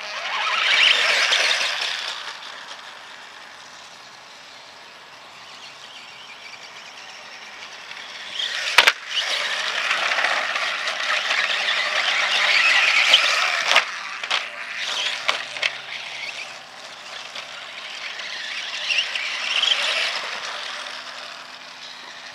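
Atomik MM 450 RC dirt bike's electric motor and drivetrain running as it is driven over grass, rising and falling in three spells of acceleration, with a few sharp knocks in the middle.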